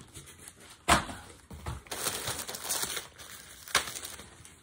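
Packaging crinkling and rustling as items are handled and pulled out of a cardboard box, with a sharp knock about a second in and another just before the end.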